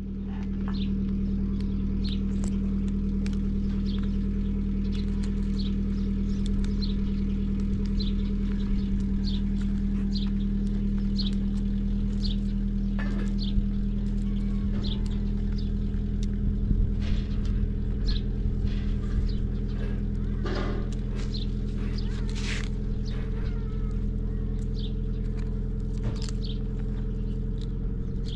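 A steady low hum with several even tones, like an engine or motor running, with sharp snaps scattered over it as cauliflower florets are broken off by hand.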